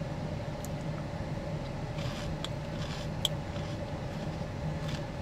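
Steady hum of an idling car, with a few faint clicks of eating about two to three seconds in.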